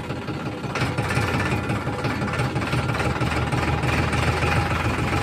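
Farm tractor's diesel engine running as it drives at low speed, a steady throbbing that gets a little louder about a second in.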